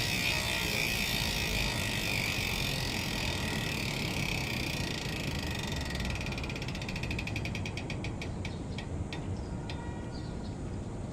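Speedone Sniper V3 rear bicycle hub with 50-tooth engagement, freewheeling. The clicking is so fast at first that it blends into a steady buzz. About halfway through it breaks into separate clicks that slow and spread apart as the wheel spins down.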